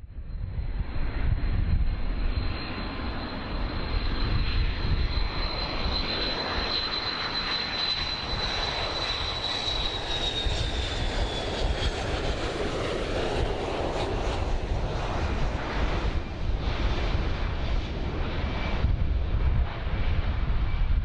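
Boeing 727 jet airliner flying low on final approach, its three rear-mounted Pratt & Whitney JT8D turbofans giving a loud rushing roar over a deep rumble. A high thin whine holds steady, then drops in pitch about ten seconds in as the jet passes.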